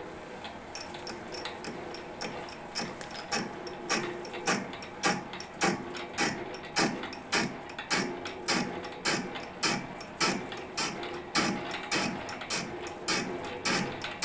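Metal lathe turning a steel flywheel blank at its slowest speed, about 100 rpm, while the tool takes a fine cut on the rim. Steady running of the lathe's gearing, with sharp regular ticks a little under two a second that grow louder from about three seconds in.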